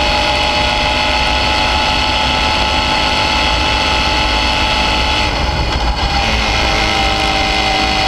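Suzuki V-Strom 650's 645 cc V-twin engine running at steady revs while the bike is under way, over a deep wind rumble on the microphone. The engine note dips and shifts briefly about six seconds in.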